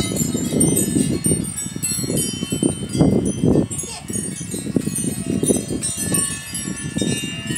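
Wind chimes ringing, many high tones struck and overlapping continuously, with an uneven low rumble underneath.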